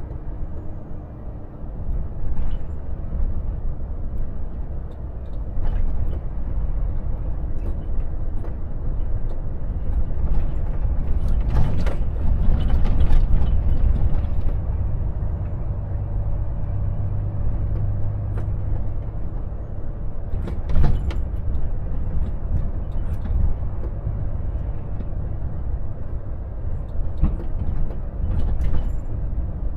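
Volvo FH truck's diesel engine and road noise as a steady low drone, with several short knocks and clatters now and then.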